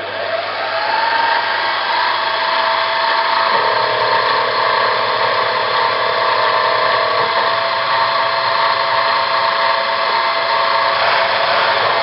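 Spindle motor of a CNC-converted Optimum BF20 Vario milling machine starting up, its whine rising over the first second, then running steadily. The tone shifts about three and a half seconds in and again near the end.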